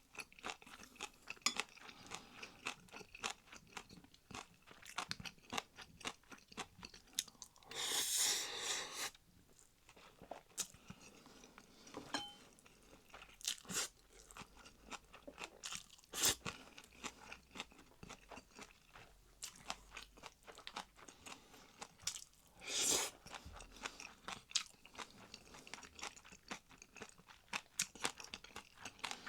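A person chewing crunchy food with rapid, close crisp crunches, broken twice by a louder rush of noise lasting about a second.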